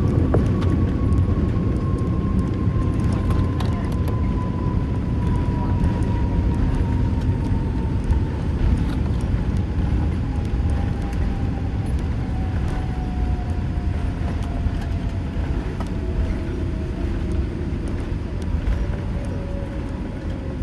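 Cabin noise of a Boeing 787-8 airliner slowing on the runway after landing: a loud, steady low rumble with one whine that falls slowly in pitch throughout, the overall level easing off a little.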